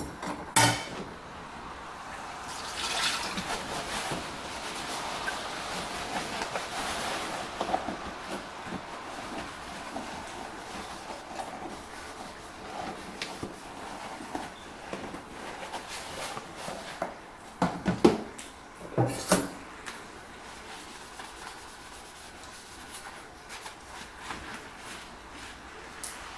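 Washing dishes: water running in a steady hiss for several seconds early on, with sharp clinks of dishes knocking together just after the start and twice more about two-thirds of the way through.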